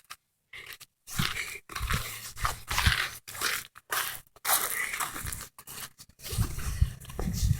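Footsteps crunching in snow, an irregular run of short crunches.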